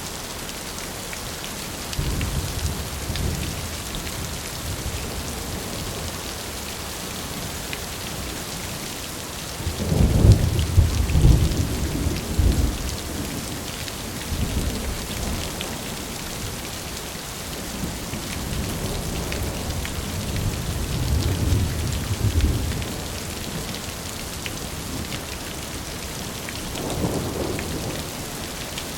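Steady rain falling, with thunder rumbling four times; the loudest roll comes about ten seconds in.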